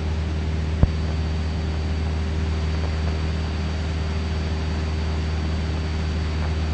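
Single-engine light aircraft's piston engine and propeller droning steadily at cruise power, about 2350 rpm, heard inside the cabin. A single short click just under a second in.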